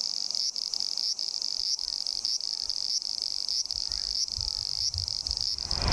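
A cicada buzzing: a steady, high-pitched buzz that dips briefly about twice a second.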